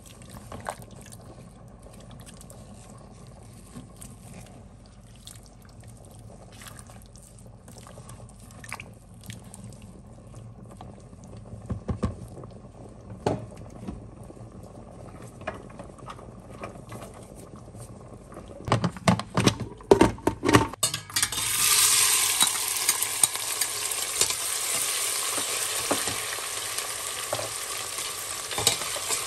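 A metal spoon clicking and scraping against a pot of chicken stew, with a quick run of louder clicks after about twenty seconds. Then a sudden, steady sizzle starts: chopped onion and bell peppers frying in hot oil while a spatula stirs them.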